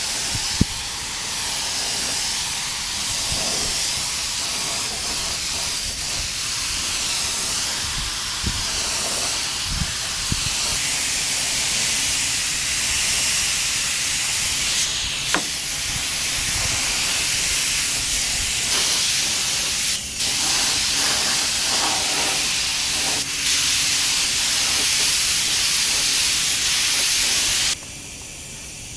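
Gravity-feed paint spray gun hissing steadily as compressed air atomises paint onto motorcycle bodywork. The hiss breaks off for a moment a few times as the trigger is eased, then stops shortly before the end.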